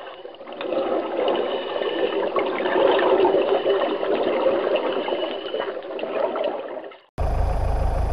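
Running water, a steady rushing and trickling that fades in and fades out about seven seconds in. It then cuts suddenly to a steady low rumble.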